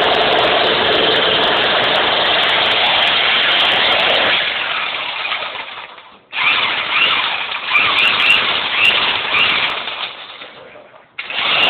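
Handheld demolition hammer chiselling into rock, running in long bursts. It dies away and stops about six seconds in, starts again at once, and stops and restarts once more near the end.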